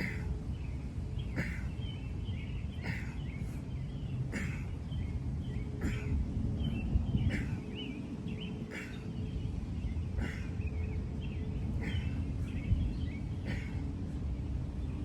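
Outdoor ambience: birds chirping over a steady low rumble, with a short, sharp sound repeating about every second and a half.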